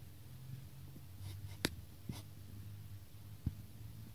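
Faint steady low hum with a few light clicks, one sharper click in the middle and a softer one near the end.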